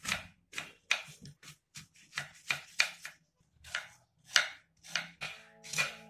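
Kitchen knife slicing through a peeled apple onto a wooden cutting board, a run of crisp cuts about two or three a second.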